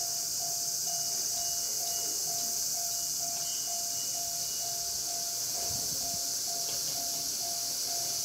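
Japanese railway level-crossing electronic warning bell ringing steadily, about two dings a second, over a steady high hiss.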